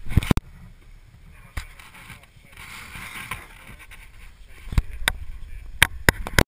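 Scattered sharp clicks and knocks over a low steady rumble, most of them in the last two seconds.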